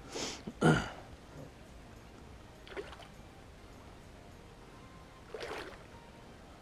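A person sniffing twice in quick succession close to the microphone, from a head cold. Two fainter short rushes of breath or noise follow, about three and five and a half seconds in.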